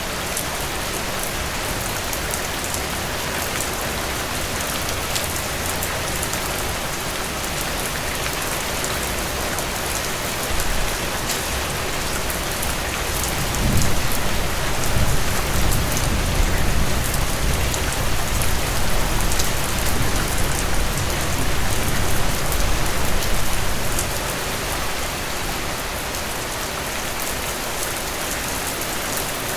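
Heavy rain pouring down in a steady dense hiss with fine drop patter. About halfway a deep rumble of thunder comes in with a sharp onset and rolls on for about ten seconds before fading back into the rain.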